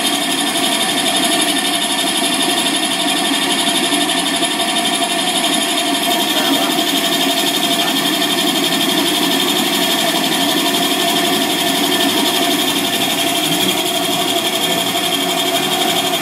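Coffee grinding machine running steadily at full speed, a loud, even mechanical hum with a constant high whine.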